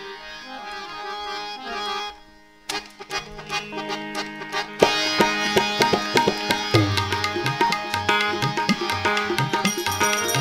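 Instrumental interlude of a Gujarati devotional bhajan: harmonium holding notes, then about five seconds in tabla and the rest of the ensemble come in louder with a steady rhythmic beat.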